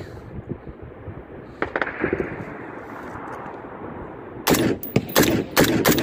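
Gunfire from several weapons opening up about four and a half seconds in: loud, sharp shots several a second, ragged and overlapping. This is an ambush's opening volley on men below. Before it there is only low background noise.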